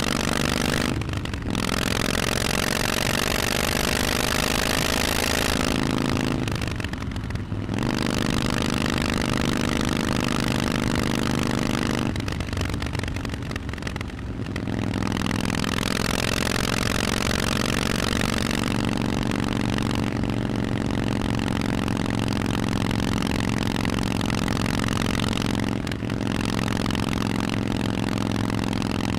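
Harley-Davidson Forty-Eight's air-cooled Evolution V-twin running through a Vance & Hines exhaust while riding. The engine pitch climbs under acceleration, with several brief dips where the throttle is rolled off, then holds steady at cruise, over wind rush.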